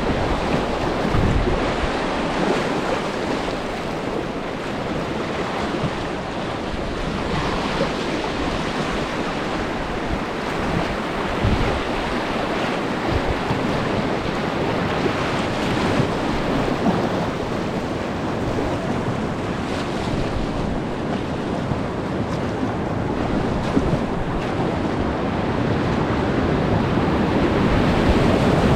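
Whitewater rapid rushing steadily, a dense constant wash of churning water, with wind buffeting the microphone at times.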